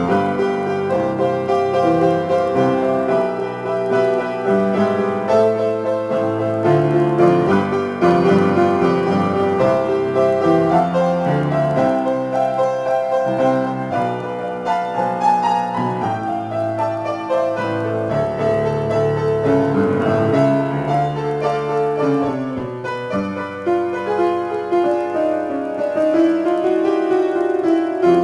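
Upright piano played solo: a steady flow of improvised notes and chords in A minor.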